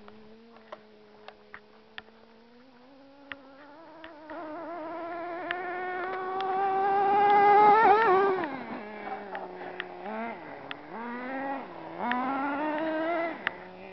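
Traxxas Nitro Stampede RC truck's small two-stroke nitro engine idling, then revving up in a steadily rising whine to its loudest about eight seconds in as the truck accelerates, falling back, and revving up again near the end. Scattered sharp clicks run alongside.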